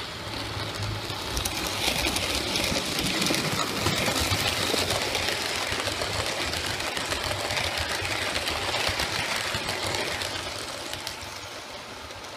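OO gauge model train running past along the track: a busy mechanical rattle of motor and wheels with fine rapid ticks, building over the first couple of seconds and fading away over the last two.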